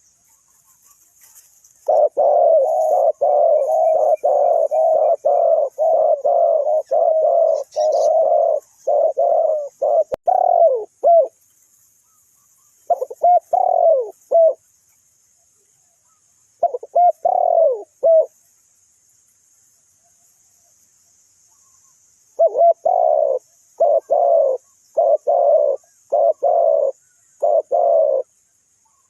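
Spotted dove cooing loudly, close by: a long run of short, repeated coos lasting about nine seconds, then three shorter bouts with pauses between them.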